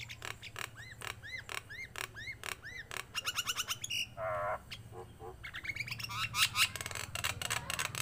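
Caged common myna calling in a varied run. It gives a series of arched whistled notes about two a second, then rapid clicking notes, a short harsh croak, and a fast chatter of notes near the end.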